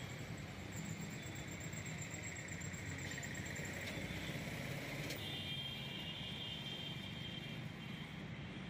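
Steady low vehicle engine and traffic noise, with a faint high whine coming in about five seconds in.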